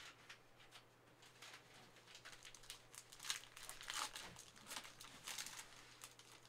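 A Panini Prizm soccer card pack's wrapper being torn open and crinkled by hand: a run of quick, faint crackles that gets busier and louder from about two seconds in.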